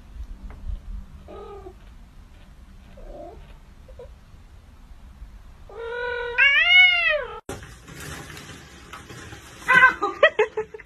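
Kitten giving a few faint mews, then one long meow that rises and falls in pitch about six seconds in. Near the end comes a quick run of short, sharp pitched sounds.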